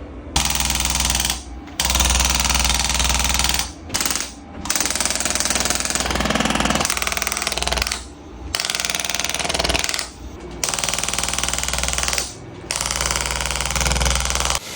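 Rapid mechanical hammering, typical of a handheld percussion massage gun pressed against the body. It runs in stretches of a few seconds, with short breaks where it stops or is lifted off.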